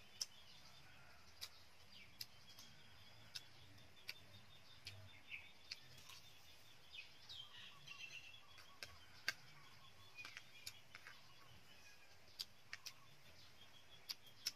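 Quiet eating sounds: scattered sharp clicks of a metal spoon against a plate and mouth sounds of chewing, over faint bird chirps.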